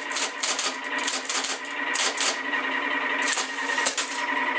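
Friden Flexowriter SFD typing and punching paper tape: sharp electric-typewriter key strokes with the tape punch clattering, about three or four a second for the first two seconds. The machine's motor then hums steadily, with a short harsher burst a little over three seconds in.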